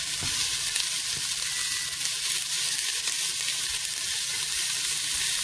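Chopped onions sizzling in hot olive oil in a pot, a steady frying hiss with a few faint knocks from stirring.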